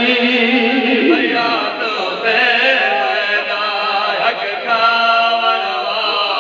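Men chanting a noha, a Shia lament: a lead reciter's voice with other men singing along.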